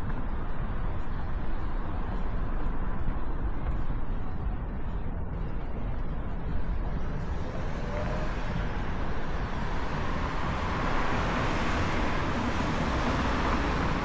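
Street traffic noise with wind rumbling on the camera microphone; a passing car's tyre noise swells over the second half.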